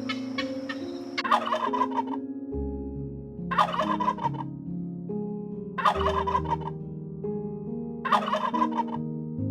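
Turkey gobbling four times, about two seconds apart, each gobble a short rattling call.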